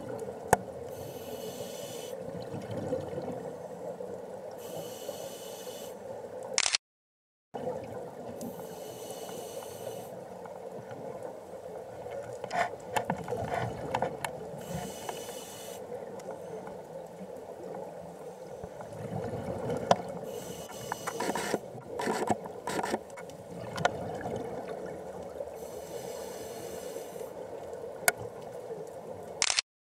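Underwater sound picked up by a camera near scuba divers: a steady watery hum, with bursts of bubbling hiss from regulator exhalations every few seconds and a few sharp clicks and knocks. The sound drops out briefly once, about a quarter of the way through.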